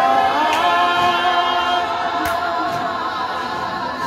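A congregation singing together unaccompanied, many voices holding one long sustained note.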